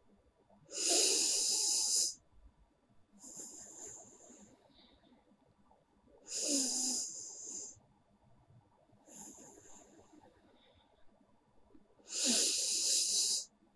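A woman breathing slowly and deliberately in and out through her nose in a breathing exercise, close to the microphone: long breaths about every three seconds, three louder ones alternating with two fainter ones.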